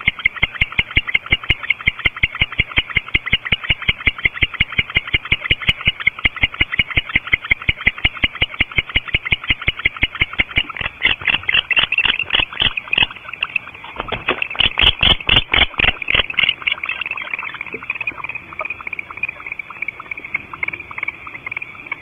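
Barn owls in the nest cavity calling: a fast, even run of short chittering calls, about five a second, that grows louder and more ragged from about eleven to sixteen seconds in, during mating, then settles into a drawn-out hissing call.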